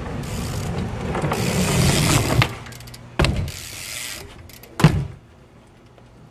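BMX bike tyres rolling over concrete and growing louder as the bike comes close, then two sharp knocks of the bike hitting concrete about a second and a half apart, the second the loudest.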